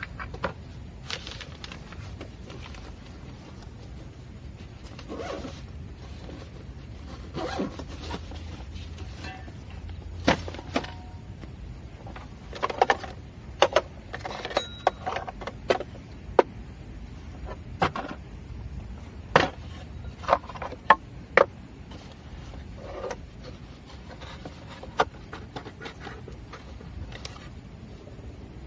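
Coffee gear being handled on a wooden board: scattered knocks, clicks and light scrapes as a wooden box, jar and hand grinder are set down and arranged, busiest in the middle, over a low steady rumble.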